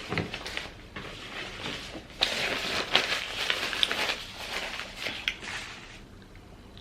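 Close-miked rustling and small clicks from handling food at the table, with a louder stretch starting about two seconds in and lasting about three seconds.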